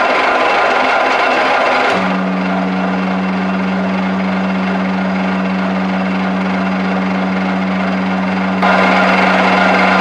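Metal lathe running and turning down hexagon bar stock, with the hiss and rattle of the cutting tool in the metal. About two seconds in a steady low hum joins and holds, and the cutting noise gets louder again near the end.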